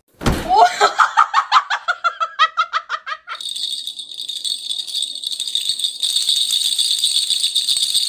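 A person laughs in quick, rapid bursts for about three seconds, then a continuous high jingling, as of a small bell shaken without pause, takes over.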